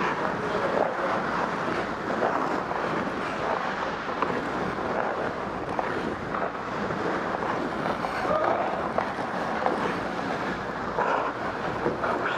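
Steady rushing wind noise on a body-worn camera's microphone as the wearer skates down the ice, mixed with the scrape of hockey skate blades.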